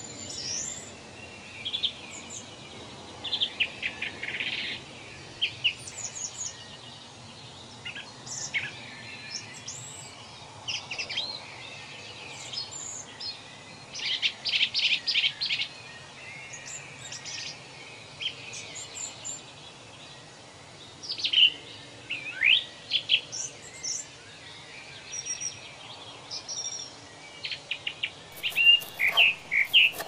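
Small birds chirping and calling: short high chirps and quick trills, with a fast run of about six notes a little past the middle and a few sweeping calls later. Near the end, a knife starts chopping onion on a cutting board.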